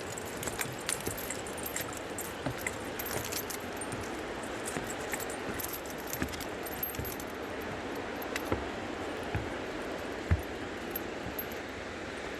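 Light metallic jingling and scattered small clicks, irregular and repeating throughout, over a steady rushing hiss.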